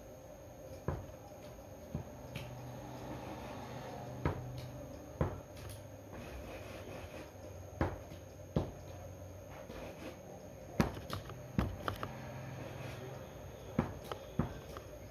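Irregular sharp knocks and taps, about a dozen, scattered over a steady low hum.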